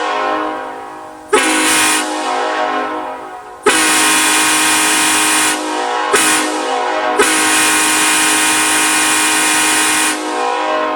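Nathan Airchime raised-letter K5LLA five-chime locomotive horn blowing its chord on compressed air. A short blast comes about a second in, then a long blast from about four seconds that dips twice and holds until about ten seconds. The chord rings on and echoes away after each blast stops.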